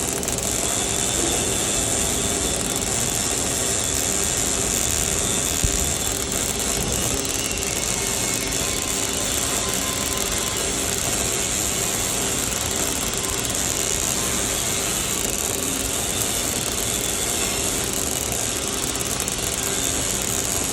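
MIG welding arc running continuously as a bead is laid, a dense steady crackle with no break.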